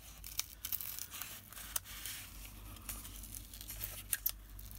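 A layered paper card being handled and lifted apart by hand: faint, irregular crackling and rustling of cardstock and adhesive, with scattered small clicks.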